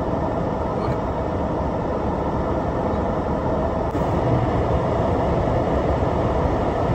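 Steady rumble of road and engine noise inside a car's cabin while driving.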